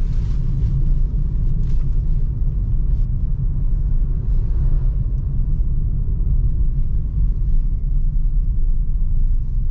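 Steady low rumble of a Suzuki Ertiga driving along a road, heard from inside the cabin.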